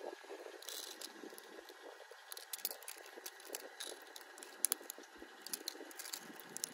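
Plastic gel pens clicking and rattling against each other and the asphalt as a hand moves them. There are a few sharp ticks over a faint hiss, and the loudest come a little past the middle.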